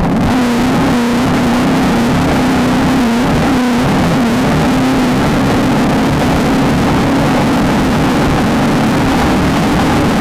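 Off-road desert race vehicle's engine running hard and continuously, its pitch wavering with the throttle and dipping briefly a few seconds in, over a constant noisy rush.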